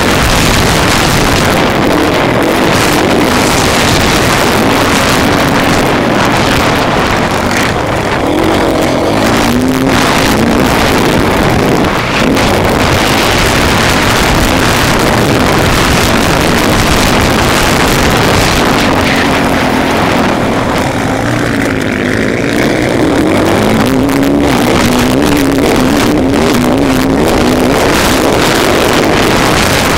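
Motocross motorcycle engine under hard racing throttle, heard loud and close from the onboard camera, its pitch rising and falling over and over as the rider revs up and backs off.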